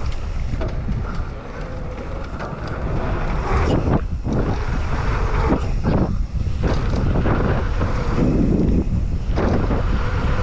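Wind buffeting the rider's camera microphone over the noise of a mountain bike rolling fast on a dirt trail, with irregular rattles and knocks from the bike over bumps.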